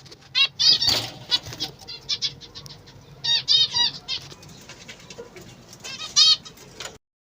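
Small ornamental cage birds chirping in short bursts of quick repeated high notes, with wing flapping and light rustling among them; the sound cuts off abruptly near the end.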